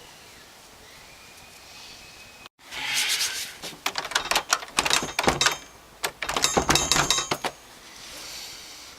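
A locked door being tried: its handle rattling with dense metallic clicks and ringing, with a few heavier knocks, in two spells about three and six seconds in.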